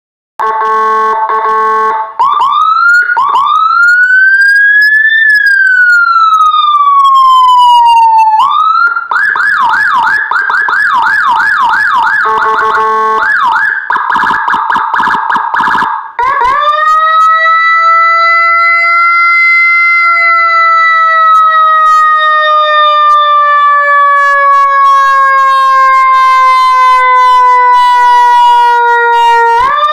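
Electronic police siren module with Whelen HHS 3200-style tones, played loud through a TOA horn speaker and stepping through its patterns. It gives a brief steady horn tone, then two quick whoops about two seconds in, then a slow wail that rises and falls. A fast yelp follows, then another short horn tone, and from about sixteen seconds a long wail that climbs quickly and then falls slowly until it restarts at the end.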